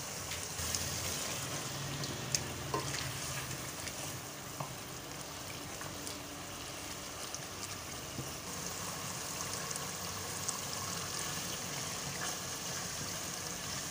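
Meat and potatoes frying in oil and masala in a pot, a steady sizzle with occasional clicks of a spoon against the pot as they are stirred: the bhuna stage of browning the curry before water goes in.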